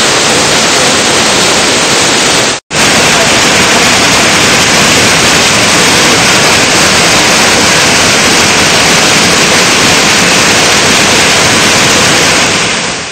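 Loud, steady rushing of a waterfall pouring into a stream pool. It breaks off for an instant about two and a half seconds in, then carries on and fades out at the end.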